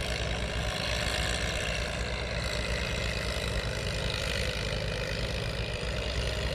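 Two old Fiat tractors, a 600 and a 640, running their diesel engines together in a steady drone as they till muddy paddy soil.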